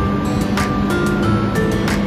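Instrumental background music: a melody of held notes over a low steady note, with a sharp percussive hit twice.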